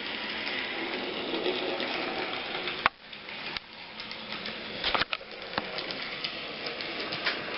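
N-scale model train running on the track: a steady small-motor whir and wheel hiss, then a sharp click nearly three seconds in, after which it is quieter with a few scattered clicks.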